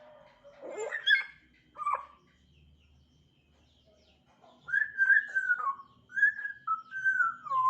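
African grey parrot whistling: two short calls in the first two seconds, then, after a few seconds' pause, a run of loud whistled notes that slide downward in pitch.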